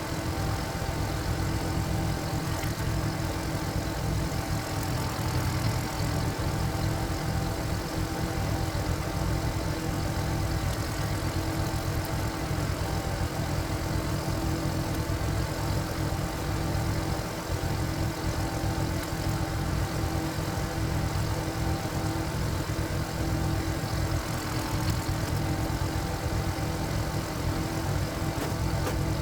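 A walk-behind power tiller's single-cylinder diesel engine runs steadily at an even speed, with a dip in level about two thirds of the way through.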